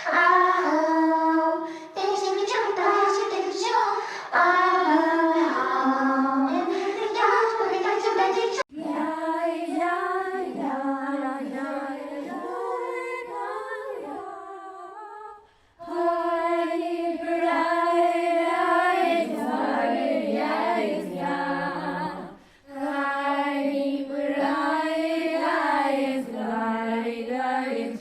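AI-generated singing voices: a series of short synthetic vocal clips played back one after another, each starting and stopping abruptly.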